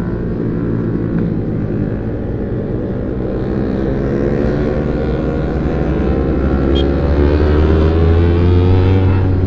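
Kawasaki Ninja 250 FI parallel-twin engine through a CLD Monster racing exhaust while riding, its pitch climbing steadily through the second half as the bike accelerates.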